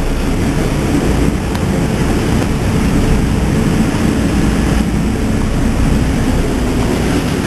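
A boat under way: a steady engine drone under the rush of churning wake water, with wind buffeting the microphone.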